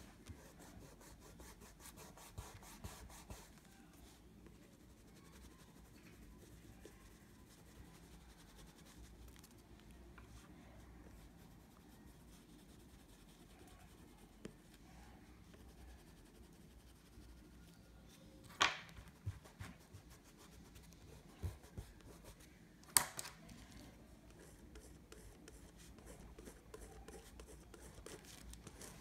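Oil pastel rubbing and scratching on sketchbook paper in quick, short shading strokes. Two sharp knocks come in the second half, and these are the loudest sounds.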